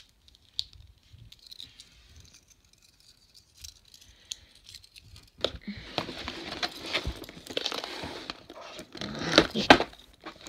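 A cardboard toy box being cut and opened by hand: tearing, scraping and rustling of cardboard and packaging with many sharp clicks. It starts about five seconds in after a near-quiet stretch of a few faint clicks, and is loudest near the end.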